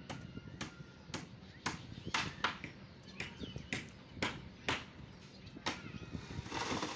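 Sharp knocks repeating about twice a second, fairly regular, with faint voices behind them.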